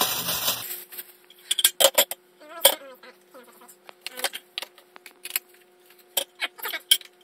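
Hard plastic office-chair parts knocking and clicking together as they are handled. The result is an uneven string of sharp taps and clacks over a faint steady hum.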